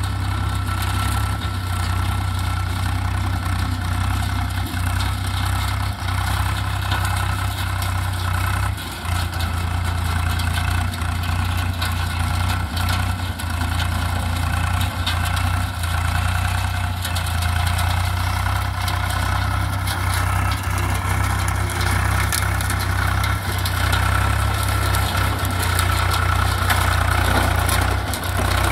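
Swaraj tractor's diesel engine running steadily as the tractor drives over dry crop stalks, with a brief dip about nine seconds in.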